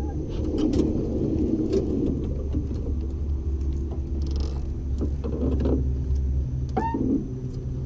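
Small electric trolling motor humming steadily, dropping away about six and a half seconds in, with scattered light clicks and a short rising call near the end.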